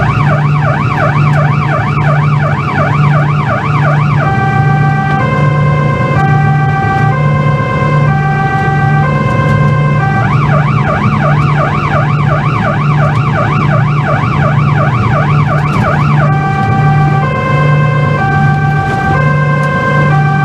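Police van siren heard from inside the van, switching between a fast warbling yelp and a slower two-tone hi-lo pattern, changing about four seconds in, again near the middle and once more about three quarters through, over a steady low pulsing hum.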